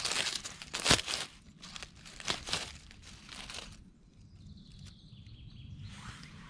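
Dry fallen leaves crackling and rustling as a hand and knife work through the leaf litter to cut a morel mushroom at its stem, with one sharp crackle about a second in. It goes quieter after about four seconds.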